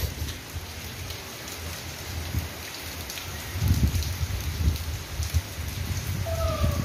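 Steady rain falling on a wet paved street and parked vehicles, with uneven low rumbles from wind gusting on the microphone.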